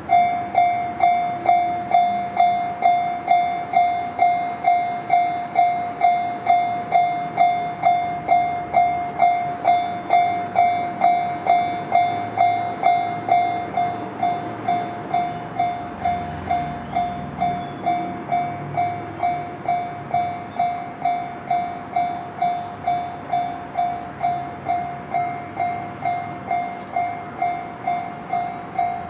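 Railway level crossing warning bell dinging steadily at about two strikes a second as the crossing alarm sounds. From about halfway through, a train's rumble rises underneath, and a brief high squeal comes near the end.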